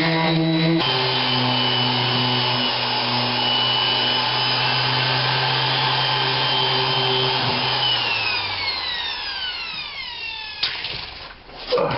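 An electric power tool runs steadily at full speed, its pitch dropping once just under a second in as it takes a load. About eight seconds in it is switched off and whines down to a stop, followed by a couple of sharp knocks near the end.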